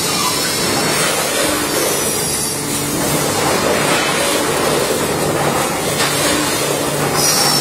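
Multihead weighing and packaging line running: steady, loud mechanical noise with a dense rattle and a faint low hum.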